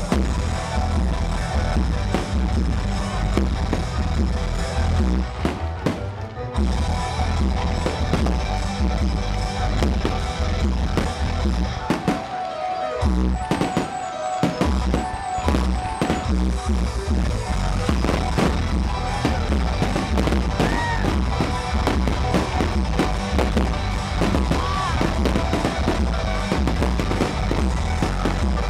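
Background music with a steady beat, with fireworks crackling and popping over it; the bass drops out for a couple of seconds near the middle.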